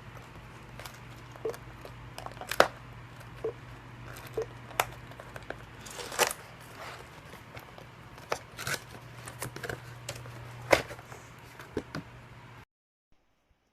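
Packaging of a keyboard and mouse set being handled: crinkling and tearing with irregular sharp clicks and taps, over a steady low hum. The sound cuts off suddenly near the end.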